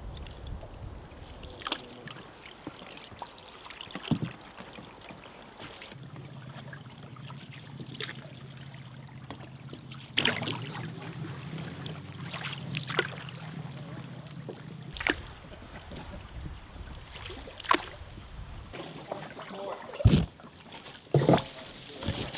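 Canoe paddling on calm water: paddle strokes with splashing and dripping, and occasional sharp knocks, the loudest near the end.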